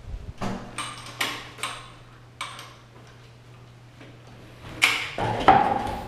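Interior panel door being handled and swung: a run of sharp clicks and knocks, then a louder rub with a short squeak about five seconds in.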